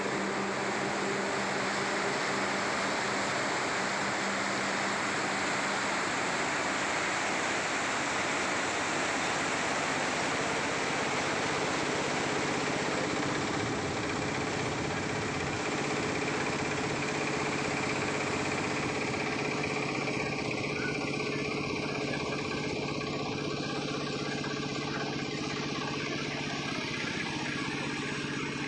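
Steady rushing noise of fast-flowing floodwater, with a steady engine hum underneath. The rushing thins out about two-thirds of the way through.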